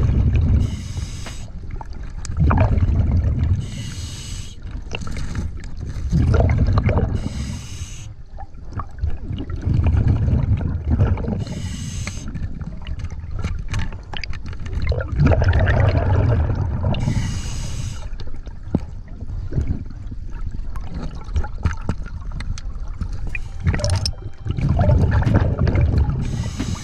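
Scuba regulator breathing underwater: about six breaths, each a short hiss of inhaled air through the regulator and a low bubbling rumble of exhaled air venting into the water.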